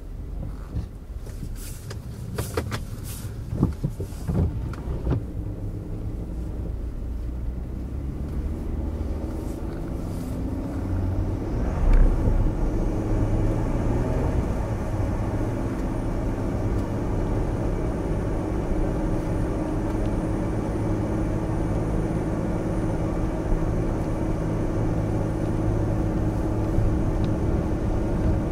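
Car driving on a wet road, heard from inside the cabin: a few sharp taps in the first few seconds, then the engine picks up with a rising hum and settles into a steady run of engine and tyre noise. A single thump comes about twelve seconds in.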